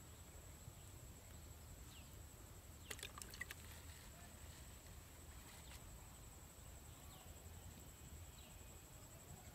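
Near silence: faint outdoor ambience with a steady high-pitched thin tone, a short cluster of light clicks about three seconds in, and a few faint brief chirps.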